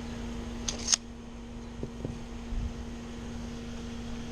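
A steady mechanical hum, with two sharp clicks about a second in and a couple of soft knocks around two seconds.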